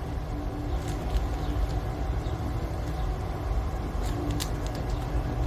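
Steady low rumble of outdoor background noise, with a few faint light clicks.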